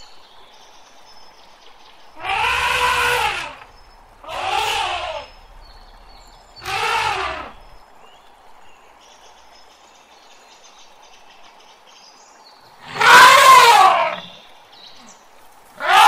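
Elephant trumpeting in loud calls of about a second each, every call rising then falling in pitch: three a second or two apart, then after a pause of several seconds one more, with another starting near the end. Faint bird chirps sound between the calls.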